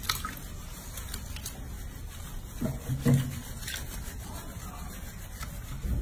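Hands rubbing a baby monkey's wet fur and stirring the water in a sink, with a few small splashes and taps, and a short low vocal sound about three seconds in.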